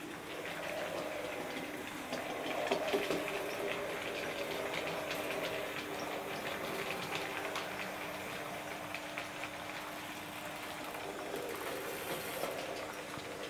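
Hattons SE&CR P class OO gauge model tank locomotive running on track with its coaches: a steady faint motor hum under a stream of small clicks from the wheels over the rail joints.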